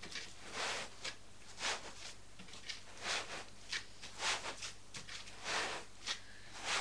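Polystyrene foam end caps and a cardboard box rubbing and scraping as a boxed server is slid out of its packaging, in a string of short, irregular scrapes and rustles.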